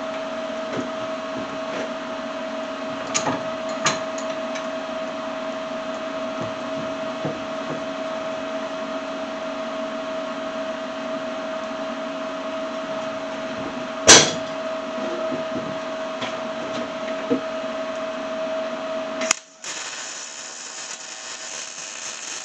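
Electric welder running while a nut and washer are welded onto a bolt: a steady humming tone under a hiss of arc noise, with a few clicks and one sharp crack about 14 seconds in. It cuts off abruptly about 19 seconds in, and a different, higher hiss follows.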